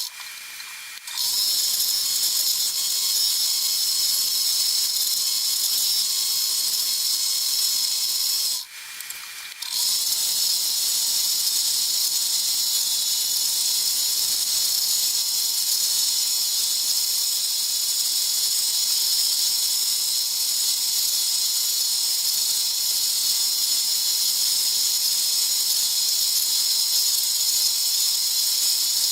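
Scroll saw running, a steady high hiss with a thin whine, cutting out abruptly twice, briefly near the start and again about nine seconds in.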